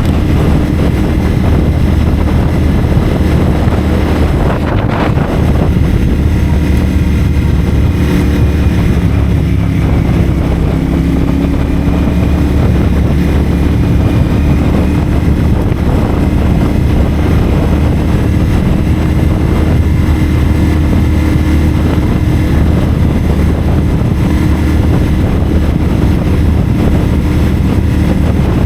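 CFMoto 450SR's 449 cc parallel-twin engine running at fairly steady cruising revs through a Yoshimura AT2 slip-on exhaust, with wind rushing over the microphone.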